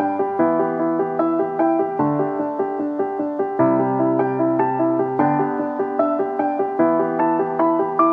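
Background piano music: a steady, even run of short notes.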